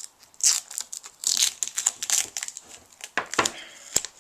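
Masking tape crinkling and tearing as it is pulled off and balled up, in irregular rustling bursts with a couple of sharp clicks near the end.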